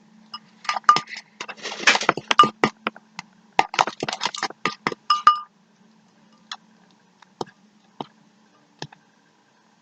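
A stirring utensil clinking and scraping against a bowl while glue and laundry detergent are mixed into slime: a quick run of clinks for about five seconds, then a few scattered taps.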